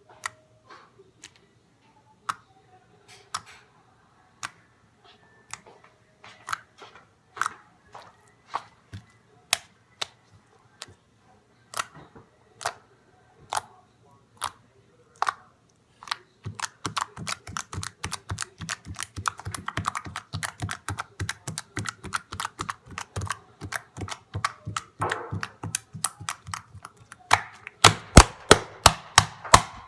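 Homemade borax slime being pressed and kneaded by hand, giving off sharp clicks and pops. They come sparse and irregular at first, then turn into a fast, steady run about halfway through that gets loudest near the end.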